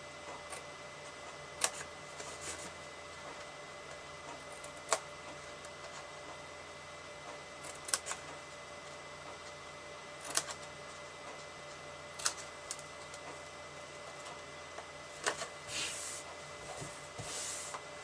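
Small pointed scissors snipping into cardstock: single sharp snips every two to three seconds over a faint steady hum, then paper rustling as the sheet is moved near the end.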